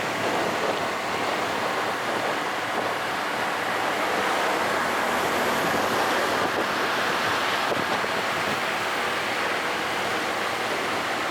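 Steady rushing rumble of a train going by, mixed with wind noise on the microphone, a little louder in the middle.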